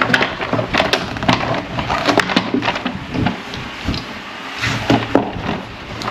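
Hand work on a part: an irregular run of sharp clicks, rattles and knocks as it is worked loose and pulled out, over a steady low hum.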